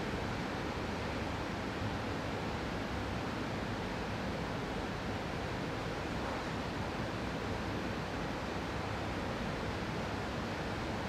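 Steady, even background noise of an indoor room, with no distinct events.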